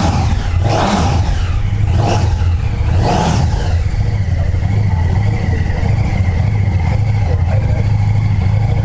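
KTM 1290 Super Duke GT's V-twin engine running through its exhaust, blipped four times in quick succession over the first few seconds, then idling steadily.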